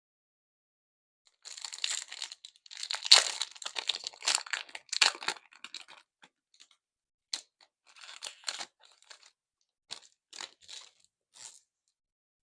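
Pokémon booster pack foil wrapper being torn open and crinkled: a dense run of crackling tearing for about four seconds, then a few short crinkles.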